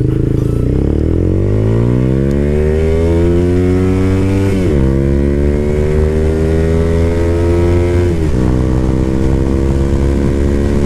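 Taro GP One V3 motorcycle engine accelerating hard through the gears: the revs climb steadily, drop sharply at an upshift about four and a half seconds in, climb again, drop at a second upshift about eight seconds in, then climb once more.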